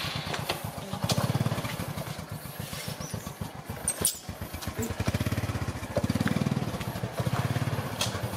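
Honda motorbike engine running at a fast, even putter, rising in loudness a few times as it is revved lightly. A sharp click sounds about four seconds in.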